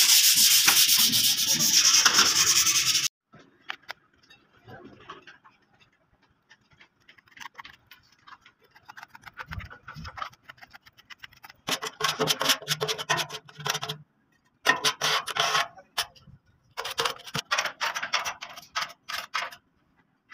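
Sandpaper rubbed by hand over a truck's steel body panels and white body filler, smoothing the filler before paint. A loud stretch of fast scrubbing in the first three seconds stops suddenly, then comes a few seconds of faint rustling as the paper is folded, then three bursts of quick back-and-forth strokes from about twelve seconds on.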